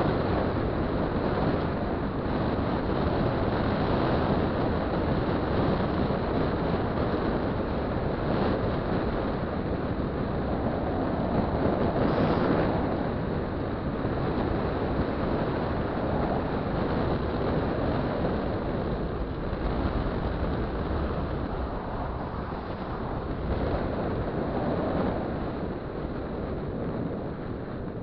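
Wind rushing over the camera microphone, mixed with road noise and the running of a 50 cc two-stroke scooter at cruising speed, with a brief swell about twelve seconds in.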